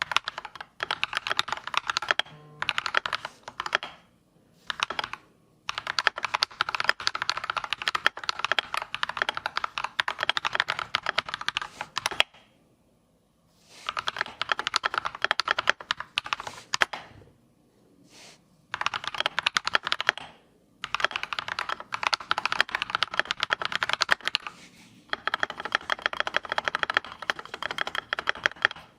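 Typing on a mechanical keyboard fitted with Akko CS Wine Red linear switches, factory-lubed: fast runs of keystrokes in bursts of several seconds with short pauses, the longest about twelve seconds in.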